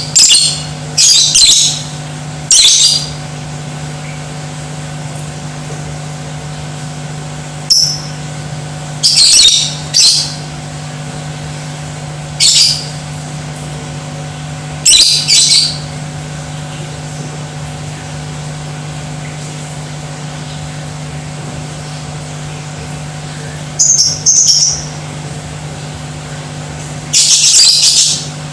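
Lovebird calling in short bursts of shrill, rapid chatter, about eight times with pauses of a few seconds between them, over a steady low hum.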